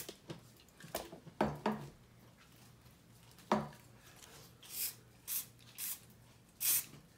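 Aerosol spray paint can giving four short squirts, each a brief hiss, in the second half. A few sharp knocks come before them, the loudest about halfway through.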